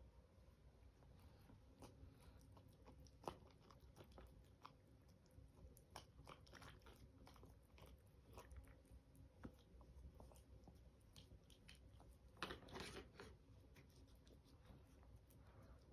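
Faint, irregular crunching of a Chihuahua puppy chewing dry kibble from its bowl, with a louder run of crunches about twelve seconds in.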